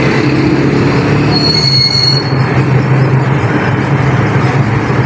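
Steady, loud road-traffic noise with a brief high-pitched squeal about a second and a half in.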